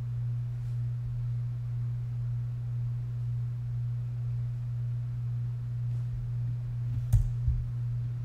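Steady low-pitched hum at one unchanging pitch, with a single sharp click about seven seconds in and a soft low knock just after.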